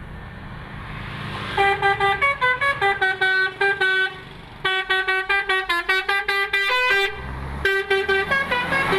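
A bus telolet horn playing a quick tune of short musical notes in three runs, each note changing about every quarter second, over the low running of the bus engine.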